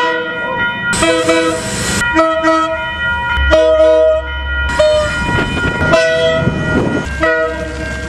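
Diesel locomotive air horns sounding a run of short chord toots, one after another, some with the low rumble of the locomotive's engine underneath. About a second in there is a brief burst of hiss.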